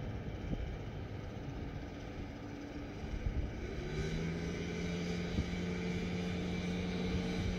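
A steady engine hum sets in about three to four seconds in and holds, over a muffled low rumble of handling noise.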